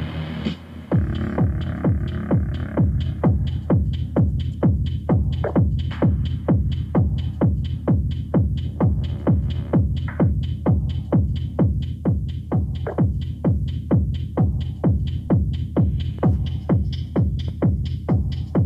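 Techno music: a steady four-on-the-floor kick drum at about two beats a second comes in about a second in, after a short break of held synth chords.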